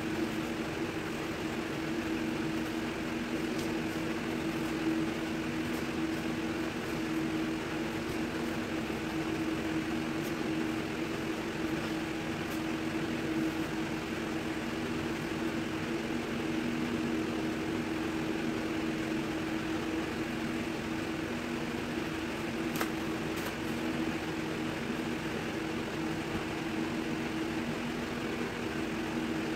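Steady machine hum: two low tones over an even hiss.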